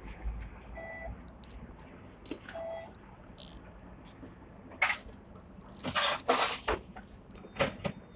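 Octopus card fare reader on a tram giving two short beeps about two seconds apart as passengers tap their cards to pay. About five seconds in come a few loud, sharp knocks and rustles.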